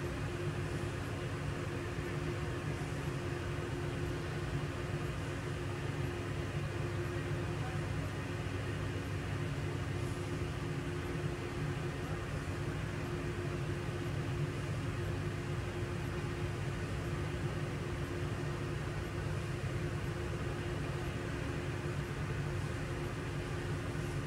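Heavy diesel road-work machinery running steadily at a constant speed: a continuous low hum with a couple of steady tones above it, unchanged throughout.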